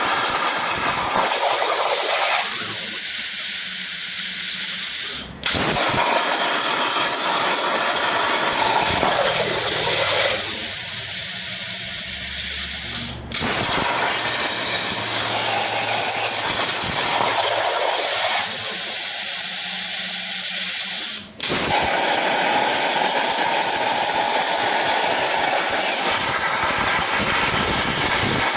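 Plasma torch on a home-built CNC table cutting quarter-inch steel plate: a loud, steady hiss of the arc and air, stopping for a split second three times, about eight seconds apart.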